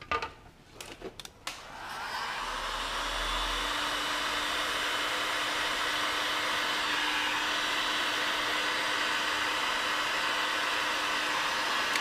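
Heat gun switched on after a few clicks of handling and running steadily, blowing hot air to shrink heat-shrink tubing over a wire of a soldered plug.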